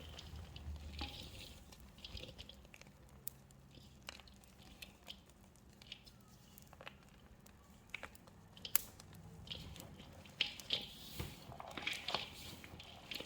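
Hands crushing small pieces of gym chalk and squishing them into a wet soap paste: irregular soft crunches and squelches with scattered sharp clicks, busier and louder near the end.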